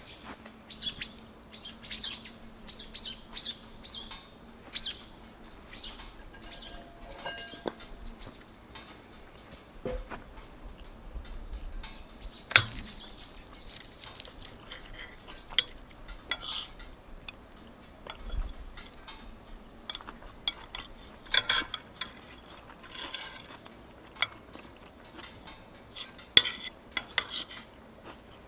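A bird calling with a quick run of sharp, high chirps in the first few seconds, then scattered light clinks of metal cutlery against dishes or a pot.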